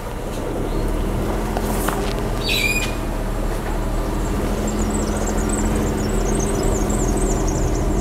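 Car engine running as the car pulls away, a steady low hum heard from inside the cabin. A bird gives one falling squawk about two and a half seconds in, and high twittering birdsong comes in over the second half.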